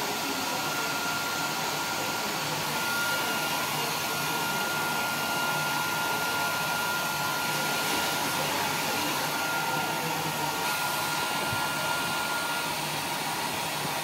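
Handheld hair dryer running steadily, blowing onto hair being combed and styled: an even rush of air with a thin steady whine from its motor.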